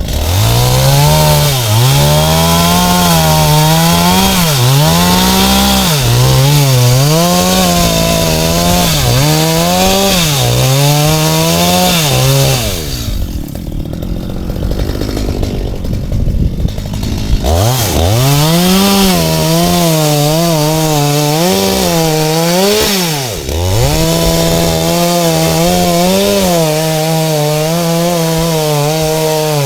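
Stihl two-stroke gas chainsaw running at high throttle and cutting palm wood. Its pitch sags and recovers again and again as the chain bites. About halfway through it drops back for a few seconds, then revs up and cuts again.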